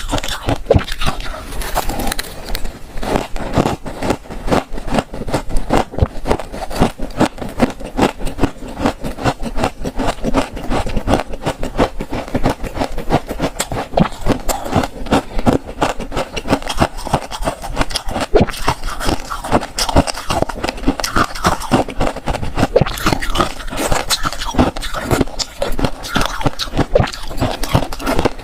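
Close-miked freezer frost being scraped and crunched, a dense, continuous run of short dry crunches several a second.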